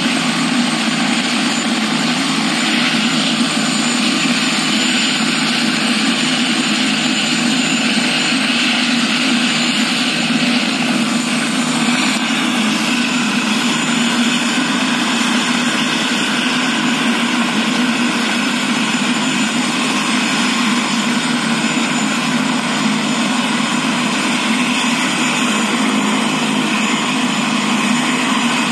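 Helicopter running steadily on the ground, a loud constant drone of engine and rotor with no change in pitch.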